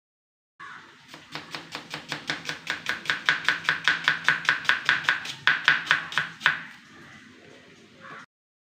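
Kitchen knife chopping small red onions on a plastic chopping board: a fast, even run of strokes, about five a second, that stops about two-thirds of the way through.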